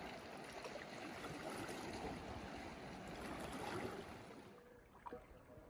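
Small waves lapping and splashing against the rocky shore as a steady, faint wash of water noise that thins out and drops about four and a half seconds in, with a couple of small clicks near the end.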